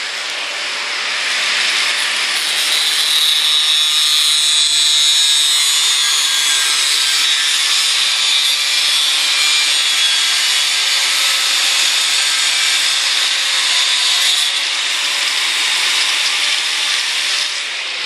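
Power grinder running with its abrasive wheel pressed against a surface, a steady harsh grinding noise that thins out a few seconds before the end and stops just before it.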